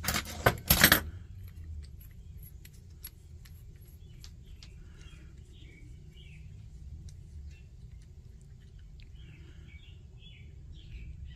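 A brief clatter of small metal tools and stove parts being handled, loudest in the first second, followed by scattered light clicks and taps over a low steady hum.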